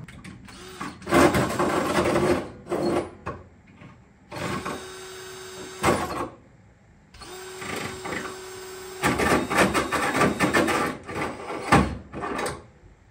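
Cordless drill drilling holes through the Jeep's sheet-metal floor for the fuel lines: spells of rough, chattering cutting as the bit bites, with two stretches of the motor spinning at a steady pitch in between, and a sharp knock near the middle and again near the end.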